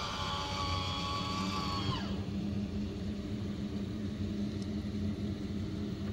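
MaxxFan roof vent fan running in a camper, a steady motor whine over a low hum; about two seconds in the whine falls in pitch and dies away, leaving the low steady hum.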